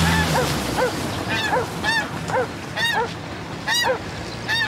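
Geese honking repeatedly, about three overlapping calls a second. A car engine's low hum fades out in the first half second.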